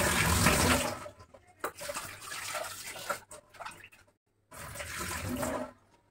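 Kitchen tap running in two rushes, the first stopping about a second in and the second running from about 4.5 s to near the end, as vegetables are rinsed under it. Between the rushes come lighter splashing and handling clicks.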